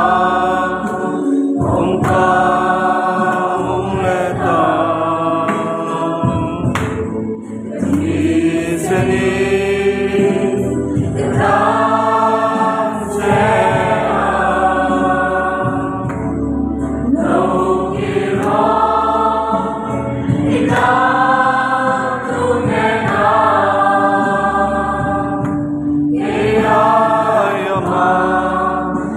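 A mixed group of men and women singing a Christian worship song together, in sung phrases a couple of seconds long with short breaths between them.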